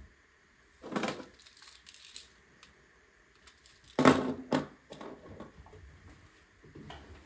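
LEGO pieces being handled in short bursts of plastic clattering and rustling: one about a second in and a louder one about four seconds in, with a few light clicks between.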